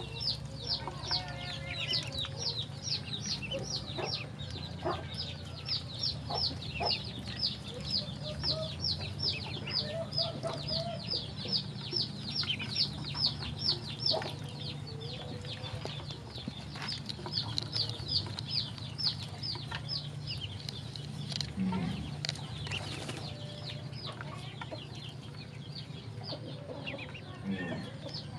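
Ducklings peeping rapidly while feeding, high falling peeps about three a second, thinning out after about halfway, over a steady low hum.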